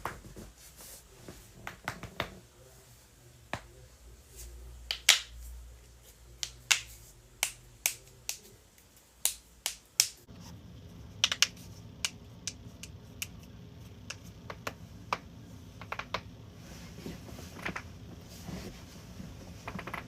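Joints cracking: a string of sharp pops at irregular intervals, some single and some in quick pairs, the loudest about five seconds in.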